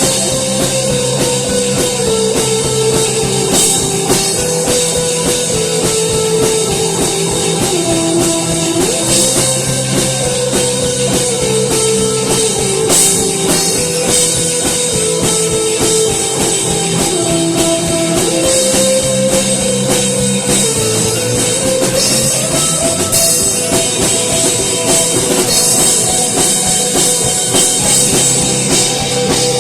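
Instrumental rock music: a steady drum-kit beat under a sustained melody line and guitar.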